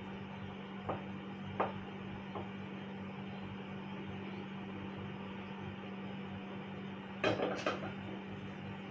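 Kitchenware being handled while the porridge is served: a few soft knocks, then two louder knocks close together about seven seconds in, over a steady low hum.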